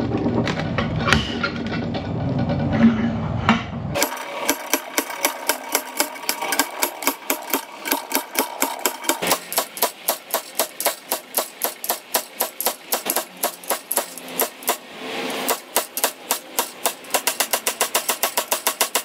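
Slide hammer being worked by hand to pull an old wheel hub out of a cast-iron steering knuckle clamped in a vise: a fast, even run of metal-on-metal strikes that quickens near the end.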